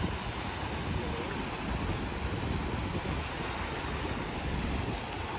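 Steady rush of surf on the beach, mixed with wind buffeting the microphone.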